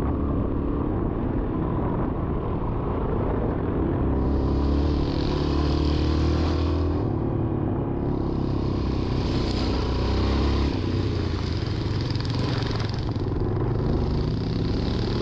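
Yamaha XT350's single-cylinder four-stroke engine running steadily under way, heard from the bike, with a low wind rumble on the microphone and a hiss that swells and fades three times.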